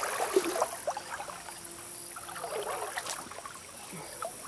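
Creek water sloshing and trickling, with a steady high-pitched trill of late-summer insects pulsing in the background.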